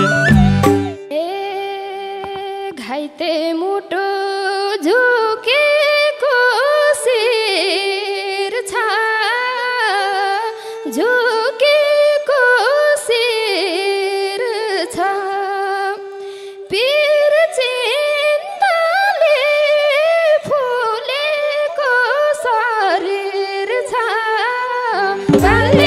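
Live Nepali lok dohori folk music: the drums drop out about a second in, leaving a slow, free melody with gliding, wavering notes over a steady held drone note, and the drums and bass come back in near the end.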